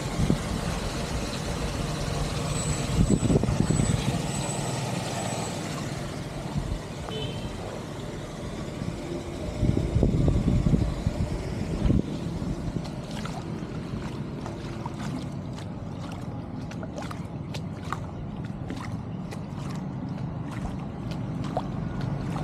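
An engine running steadily, with a few thumps and, in the second half, a run of light clicks.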